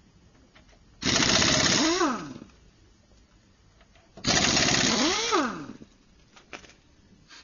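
Pneumatic impact wrench run in two bursts of about a second and a half each, with a fast rattle through each burst; the air motor's pitch rises as it spins up and falls away as it winds down.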